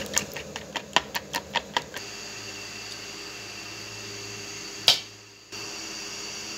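A spoon beats yogurt in a bowl, clicking against the side about five times a second, then stops after about two seconds. A steady hum follows, with one sharp click about five seconds in.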